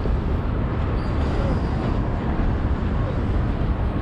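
Steady low rumble of city traffic noise with no distinct events.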